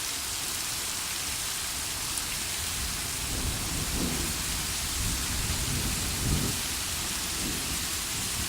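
Heavy rain pouring steadily, with low thunder rumbling in from about three seconds in and swelling twice.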